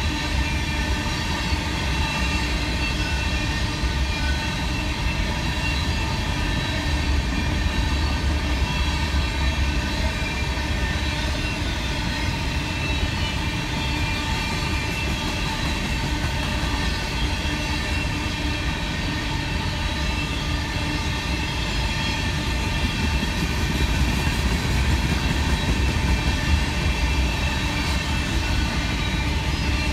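Railroad cars of a freight train rolling past at a steady speed: a continuous rumble of wheels on rail with steady high ringing tones above it.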